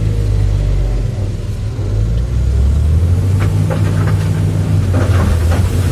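Sany SY365C hydraulic excavator's diesel engine running under load, its pitch rising a couple of seconds in as the loaded bucket swings. From about three seconds in, limestone rocks tipped from the bucket knock and clatter into the steel bed of a dump truck.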